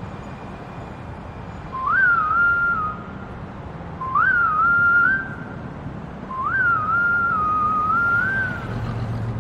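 Whistled tune opening a song, three short phrases each starting with a quick upward leap and then wavering up and down, the last one longer. Underneath runs a steady low rumble.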